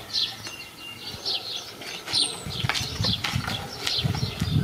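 Small birds chirping repeatedly in short calls, with irregular low thuds and rustling that start about halfway through and grow louder.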